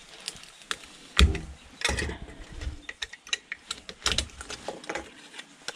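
Screwdriver prying and scraping at a hair dryer's black plastic motor housing, giving irregular clicks, scrapes and knocks. The loudest knocks come about a second in, around two seconds in and about four seconds in.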